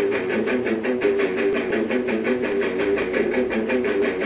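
Background music: a guitar playing a steady, repeating run of notes, about four a second.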